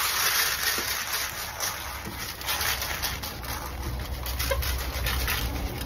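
Dry wheat grain poured from a plastic scoop into a thin aluminum baking tray: a dense rattling hiss of grain hitting the foil, loudest at first, then thinning into scattered ticks and patters.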